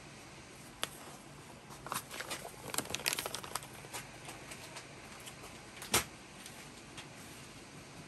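Packaging being handled: light crinkling and rustling with a cluster of small clicks about two to three and a half seconds in, and a single sharp knock about six seconds in.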